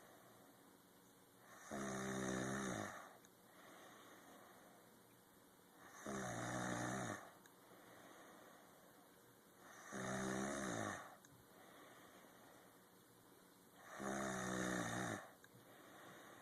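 Snoring in a slow, even rhythm: four loud snores about four seconds apart, each lasting about a second and falling in pitch, with quieter breaths between them.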